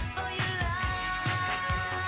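Pop dance music with a steady, driving beat and held sung or synth notes over it.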